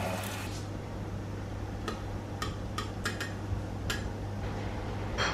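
French toast sizzling in a frying pan for a moment, cut off abruptly. Then a metal spatula gives several light clicks against a ceramic plate as the toast is set down, with one louder clink near the end, over a steady low hum.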